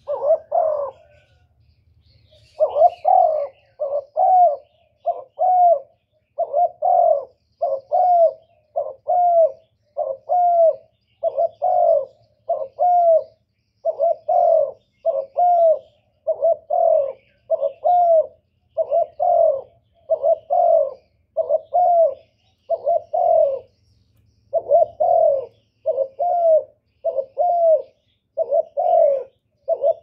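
Spotted dove cooing in a fast, steady series of short coos, about two a second, with a brief break about three-quarters of the way through.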